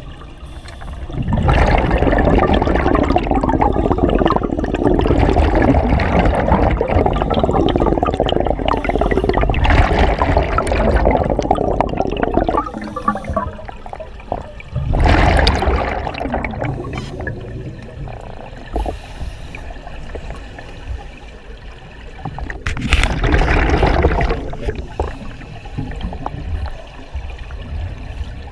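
A scuba diver's exhaled bubbles from the regulator, heard underwater, rushing and gurgling past the microphone. There is one long burst through the first half, then two shorter ones, with quieter pauses between.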